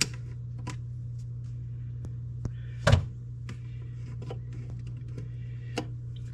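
Refrigerator compressor humming steadily just after switching on, with a few light clicks and taps over it. The compressor runs for only a few seconds before shutting off, which the owner puts down most likely to a failed starter relay.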